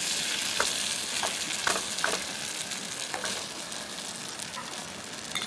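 Coconut curry chicken sizzling in a pot over a campfire: a steady hiss with a few short pops scattered through it.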